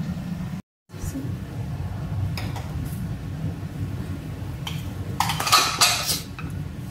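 Kitchen utensils and dishes clinking and clattering, with a cluster of sharp clinks about five seconds in, over a steady low hum.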